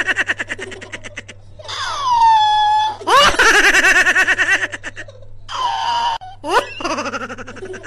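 A person laughing in high-pitched, rapidly pulsed runs of 'ha-ha-ha', in about five bursts with short gaps, over a steady low hum.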